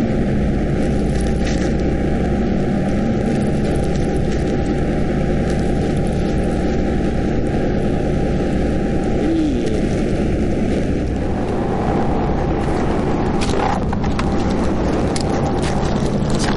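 Steady low rumbling noise that does not let up.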